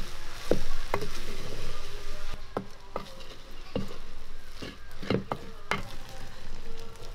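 A wooden spatula stirring and pressing chopped vegetables in a black cooking pot over a wood fire, knocking against the pot about a dozen times at uneven intervals, over a soft sizzle that is strongest in the first couple of seconds.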